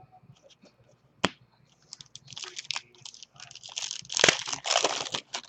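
A trading-card pack wrapper being torn open and crinkled, loudest a little past the middle, after a single sharp click about a second in.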